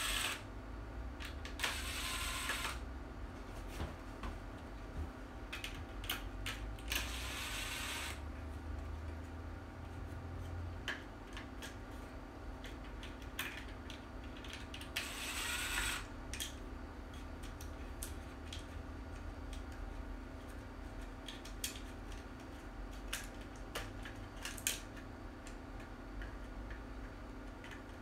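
Cordless drill running in three short bursts of about a second each, driving screws, among scattered clicks and knocks of parts being handled.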